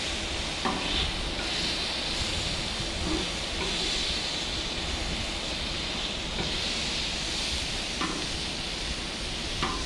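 Duck breasts and hearts sizzling in butter on a flat-top griddle, a steady hiss, with a few light clicks of metal tongs as the pieces are flipped.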